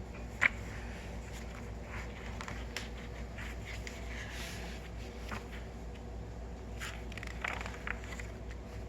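Steady low room hum with scattered faint rustles and light taps, and one sharp click about half a second in.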